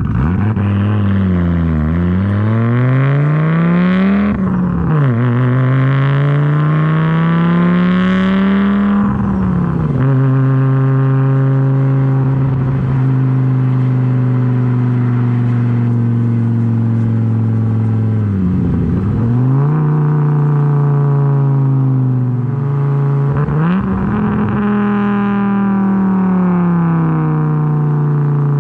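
A 1994 Audi S4's built AAN 2.2-litre turbocharged five-cylinder engine, heard through a full 3-inch exhaust with only a resonator and no muffler. It pulls away from a near stop and climbs in pitch through two gear changes, each a short break where the note drops before rising again. It then runs at steady revs, with two brief dips and pickups near the end.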